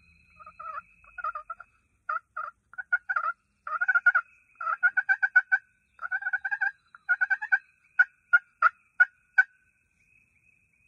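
Wild turkey calling: repeated runs of quick, rattling notes like gobbling, then a few single, evenly spaced notes near the end.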